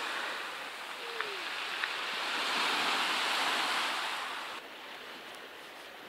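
Sea surf washing against the shore: a steady hiss that swells in the middle and falls away about four and a half seconds in.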